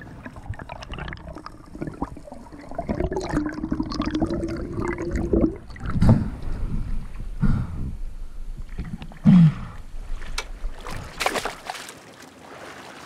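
Sea water gurgling and splashing close to a camera at and just under the surface, with several sudden loud splashes.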